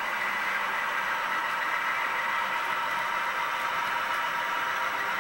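HO-scale model freight cars and a caboose rolling past on the track: a steady hiss of small wheels running on the rails, with a faint steady whine in it.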